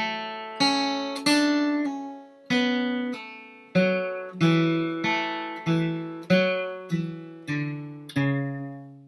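Steel-string acoustic guitar flatpicked slowly, one note at a time, about one every 0.6 seconds, each note ringing on into the next: a bluegrass lick played at practice speed.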